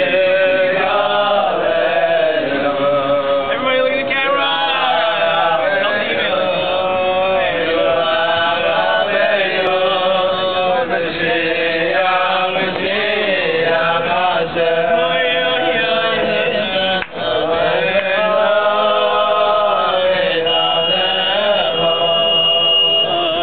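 A group of men singing together in unison, one flowing chant-like melody carried without a break.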